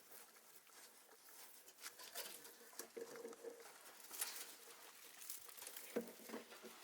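Faint, scattered rustling and clicking of a Boer goat buck and a Dorper ram eating their feed.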